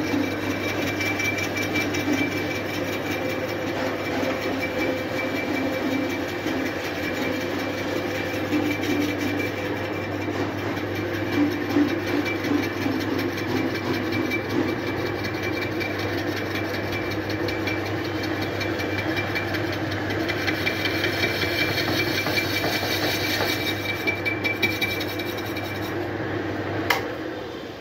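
Workshop machine running steadily with a constant electrical hum and a steady high whine, switched off with a sharp click near the end.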